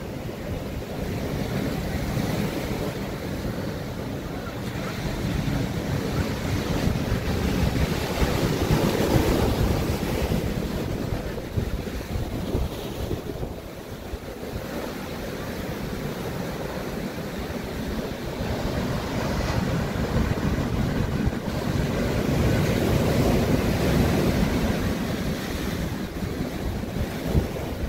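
Ocean surf breaking and washing over rocks and sand, swelling louder about a third of the way in and again near the end, with wind buffeting the microphone.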